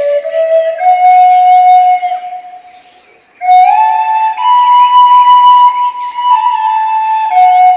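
Flute melody of slow, held notes. It fades out about two seconds in and comes back about a second later, on higher notes.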